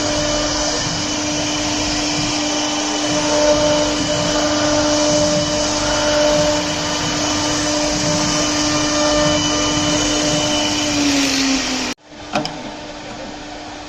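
Leapion LR-1325E CNC router running a cutting job on MDF: a loud, steady whine with a rushing hiss. The pitch dips slightly just before the sound cuts off suddenly about twelve seconds in, leaving a quieter steady hum with a few light clicks.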